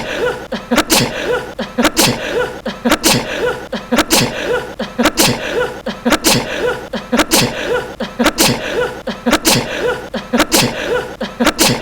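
A young man's short, light sneeze, the same sneeze looped over and over, about once a second, roughly eleven times in a row with even spacing.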